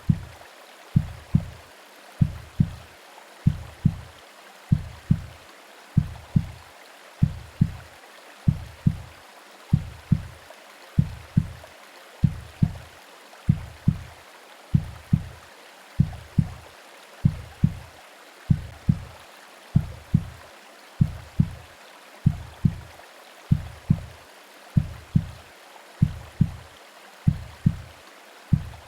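Womb-style heartbeat sound: a steady double thump, lub-dub, about once a second, over an even hiss of white noise and rain.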